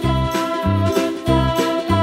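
Background music with held melody notes over a bass line that moves in a steady beat.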